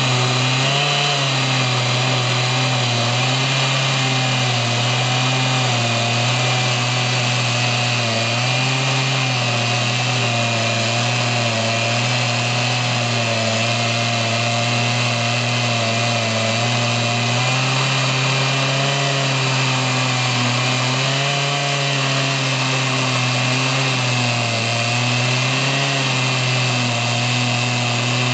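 An electric mill running steadily: a strong motor hum whose pitch wavers slightly, over an even hiss.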